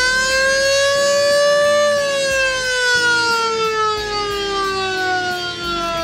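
Siren fitted to a car sounding one long wail. Its pitch keeps rising for about two seconds, then slowly falls away as it winds down.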